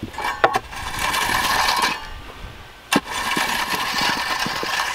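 Steel garden rake scraping through gravel and soil in two long strokes, with a sharp click of metal on stone about three seconds in.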